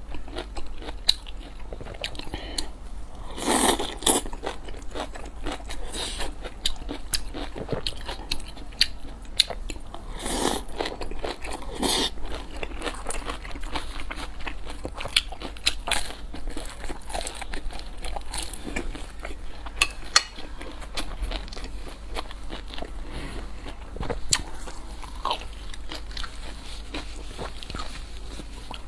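Close-miked eating: biting into and chewing crunchy food, a steady run of crisp crackles with a few louder crunches.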